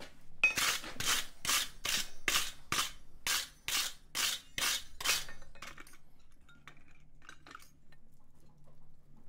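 A dozen quick scraping strokes of a hand tool across a hot steel chisel bar on the anvil, about two and a half a second, stopping about five seconds in; after that only a low shop hum and a few faint ticks.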